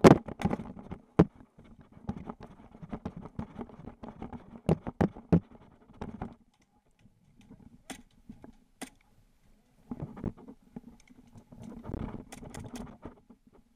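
Gear and camera handling with footsteps and rustling in dry brush: a sharp knock at the start, then irregular clicks and knocks over rustling. A quieter stretch in the middle with only a few clicks, then more rustling and clicks near the end.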